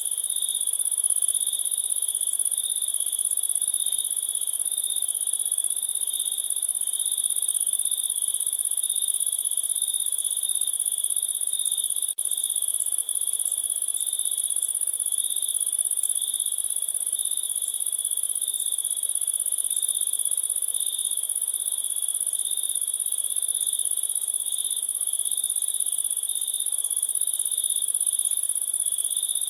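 Crickets chirping in a steady, continuous high-pitched chorus, with a brief momentary dropout about twelve seconds in.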